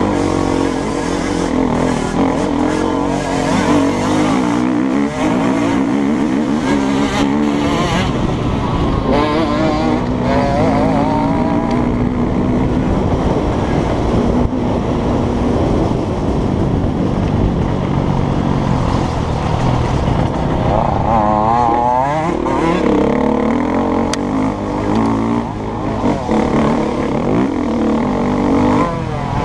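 KTM EXC-F 250's single-cylinder four-stroke engine heard from on board, running hard and revving up and down with the throttle and gear changes, and a quick climbing rev about three-quarters of the way through.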